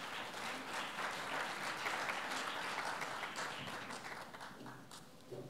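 Audience applauding. The applause is strongest about two seconds in and fades away near the end.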